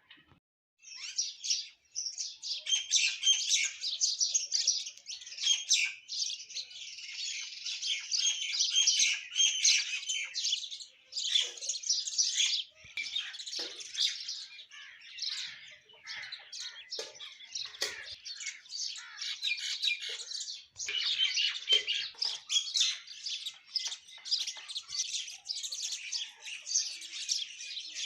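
A flock of small birds chirping all at once in a dense, continuous chatter of short high notes, starting about a second in.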